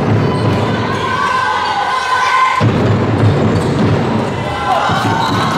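A handball bounces on the wooden floor of an indoor court, with crowd voices and shouting in the hall.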